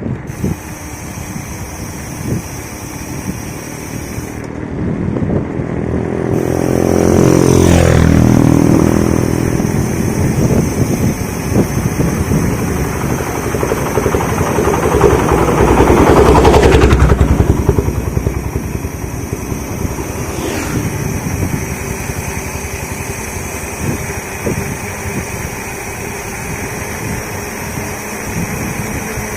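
Mountain bike rolling along a village road, its tyres and frame rattling, while motorcycles pass. One goes by about seven seconds in, its engine note dropping as it passes; a second, louder pass comes around sixteen seconds.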